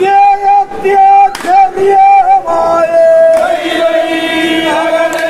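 A group of men chanting a ritual song in unison, holding long notes that change pitch a few times.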